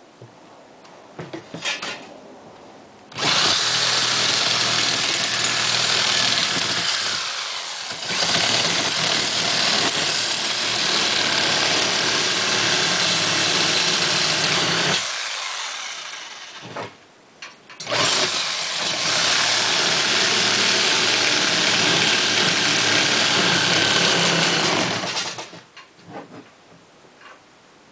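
A power tool running hard in two long runs, the first about twelve seconds and the second about seven, with a short quiet pause between.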